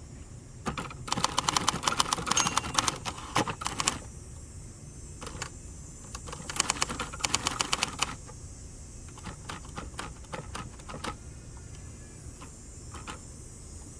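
1967 Hermes 3000 manual typewriter being typed on: two fast runs of keystrokes, one about a second in and one near the middle, with scattered single key strikes between and after.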